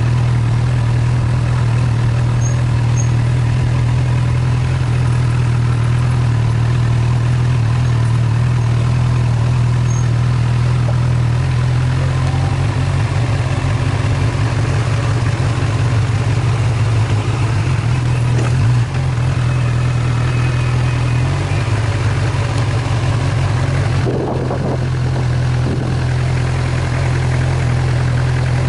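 A vehicle engine running steadily while driving: a constant low drone, with a thin steady whine above it.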